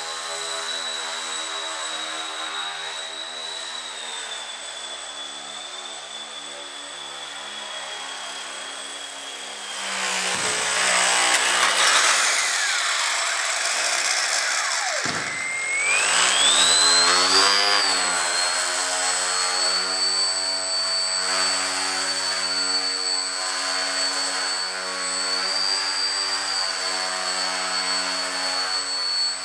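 Electric motor and propeller of a Breeze Pro FP3 indoor foam plane whining steadily. About ten seconds in a louder rushing noise comes up and the whine falls away almost to a stop, then about sixteen seconds in it rises sharply as the motor is throttled up again and settles into a steady high whine.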